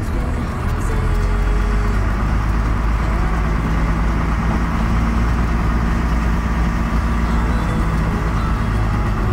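Vehicle driving along a gravel road, heard from inside the cab: a steady low engine drone with tyre and road rumble.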